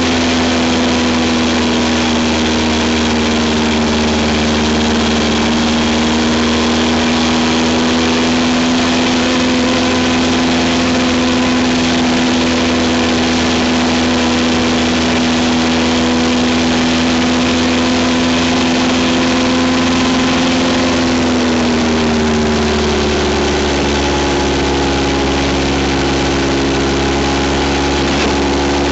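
Vehicle engine running steadily with a constant note, heard from on board while driving; the note shifts lower about 22 seconds in.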